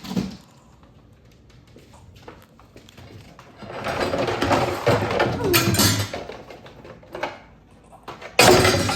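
Packaging rustling as animatronic parts are unpacked, in two spells: a longer stretch of a couple of seconds in the middle and a short loud one near the end.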